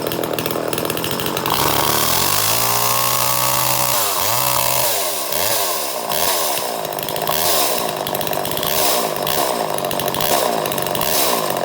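Homelite Super XL Automatic two-stroke chainsaw engine running. It idles briefly and is revved up about a second and a half in. After about four seconds its pitch drops and rises over and over as the throttle is blipped.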